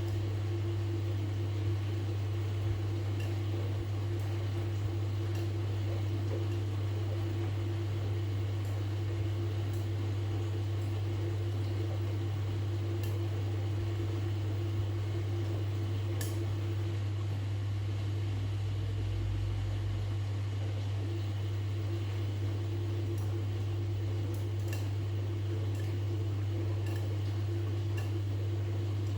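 Washing machine running with a steady, unchanging motor hum, with a few faint ticks over it.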